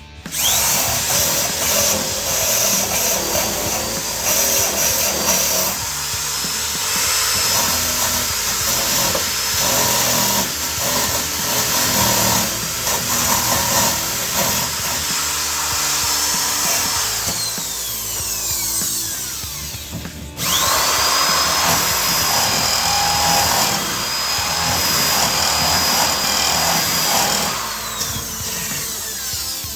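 Power grinder working on the sheet-metal floor-pan parts: it spins up with a high whine, runs steadily, winds down about two-thirds of the way in, then starts again and winds down once more near the end.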